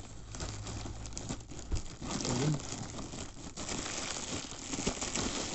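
Plastic poly mailer bag rustling as it is cut open with scissors and pulled apart by hand.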